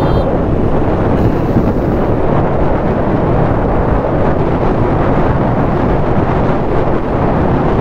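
Steady wind rush buffeting the microphone of a moving motorcycle, with the KTM Duke 390's single-cylinder engine running underneath at road speed.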